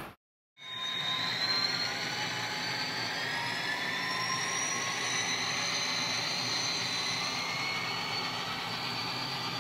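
HO scale model train, an NJ Transit ALP-45DP locomotive with multi-level cars, running along the track: a steady rushing noise with faint whining tones that slowly climb in pitch, starting just under a second in.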